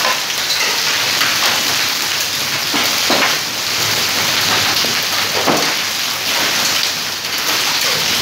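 Hailstorm: hailstones and rain pelting a stone-paved courtyard in a dense, steady patter, with a few louder clattering hits.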